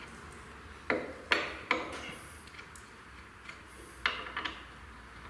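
Sharp metallic knocks and clinks: three about a second in, less than half a second apart, then another with a couple of smaller ones about four seconds in.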